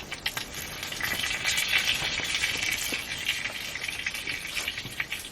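Food sizzling and crackling on a hot cast-iron griddle, the hiss swelling about a second in and easing near the end, with scattered pops.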